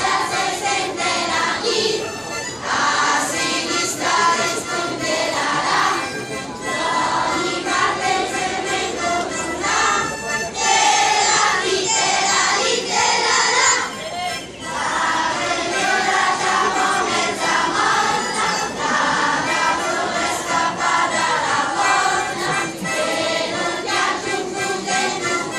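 Choir of primary-school children singing a Lombard folk song together.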